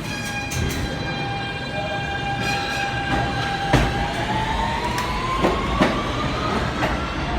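Kawasaki R160B subway train with Siemens traction motors pulling out: the propulsion gives a steady whine for about four seconds, then the whine rises in pitch as the train picks up speed. A few sharp knocks come through over the whine.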